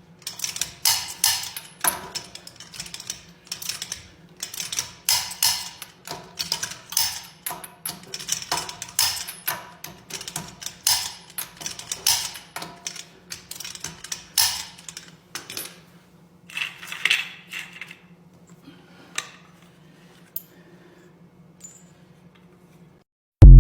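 Metal hand tools and parts clinking and clattering in irregular sharp knocks, several a second, over a steady low hum. The clatter thins out in the last few seconds, and a sudden very loud low sound breaks in right at the end.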